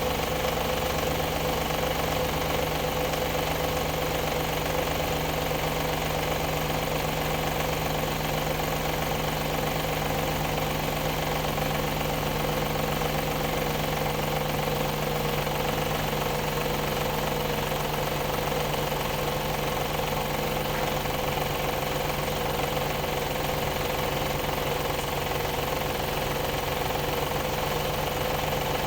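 Audi ABZ 4.2-litre V8 idling with a steady metallic knock, which the mechanics trace to the area behind the timing cover.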